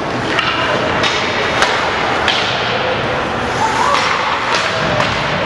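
Ice hockey play in a rink: several sharp clacks and knocks of sticks, puck and boards over a steady din of arena noise, with faint distant shouts.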